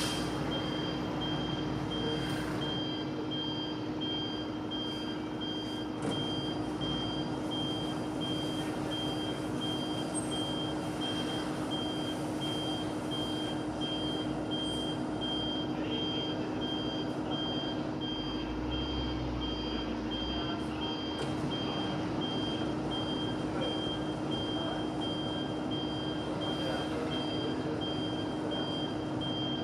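Washing machine running, a steady hum over an even noisy whirr, while a high beep repeats rapidly, about two or three times a second, throughout. A brief deeper rumble comes about two thirds of the way through.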